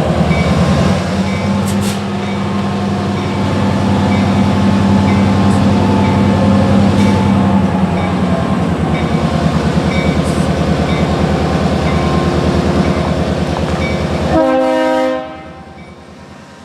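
Diesel freight locomotive running loud as it rolls through the crossing, with a short horn note near the end, after which the sound drops away.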